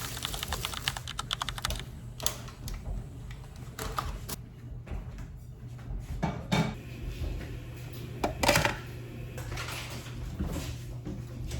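Typing on a computer keyboard: a fast run of key clicks for the first couple of seconds, then scattered key presses, with two louder knocks about six and eight and a half seconds in.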